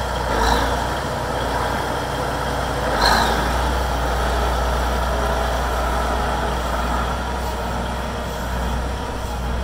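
Cummins diesel engine of a Case IH 9270 Steiger tractor idling steadily with a low hum, with two brief louder rushes of noise about half a second in and about three seconds in.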